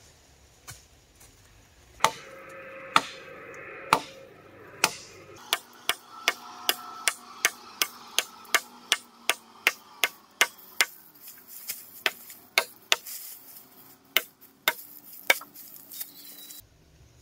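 Repeated sharp tool blows on wood: a few slow strikes about a second apart, then a quicker run of about two a second, with a faint ringing tone behind them. The sound stops suddenly near the end.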